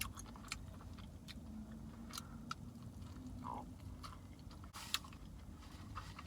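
Close-up chewing and wet mouth clicks of a person eating a burrito, with scattered soft clicks and a sharper one about five seconds in. A low steady hum runs underneath.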